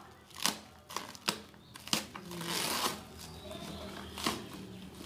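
Plastic cling wrap on a cardboard box being cut and peeled away: a series of sharp crackles and snaps, with a longer crinkling tear about two and a half seconds in.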